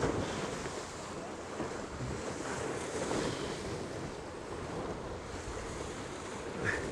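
Water rushing past the hulls of a Tornado catamaran sailing fast in strong, gusty wind, with wind buffeting the microphone: a steady rushing noise.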